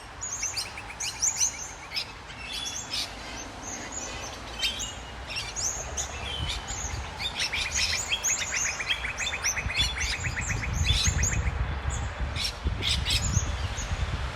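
Several birds chirping and calling in a morning chorus, including a fast even trill in the middle. Under it is a low rumble of road traffic, which grows stronger in the second half.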